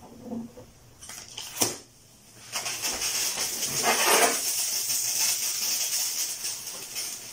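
A sharp crack about a second and a half in as the balloon comes off the bottle. From about two and a half seconds, a loud steady hiss of hydrogen and sodium hydroxide solution spraying out of the small plastic bottle's mouth: the aluminium–lye reaction has outgrown the bottle. The hiss fades near the end.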